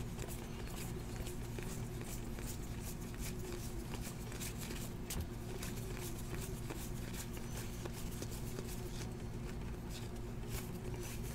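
Trading cards being thumbed through by hand, each card sliding off the stack with a soft, irregular click, over a steady low electrical hum.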